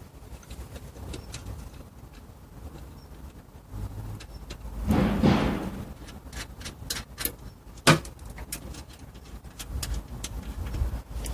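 Handling noises of a mat washer being taken apart: scattered clicks and light knocks, a scraping rustle about five seconds in, and one sharp knock near eight seconds.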